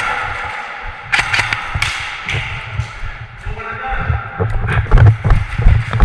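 Irregular low thumps mixed with sharp clicks and knocks, growing denser and louder in the second half, from a player moving and handling gear during airsoft play.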